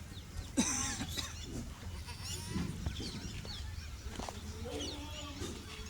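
Goats bleating: one loud call about half a second in, then several fainter calls.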